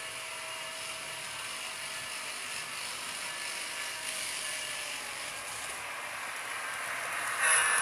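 HO scale model train running along its track: a steady whir of motor and wheels on rail, growing sharply louder near the end as the locomotive draws close.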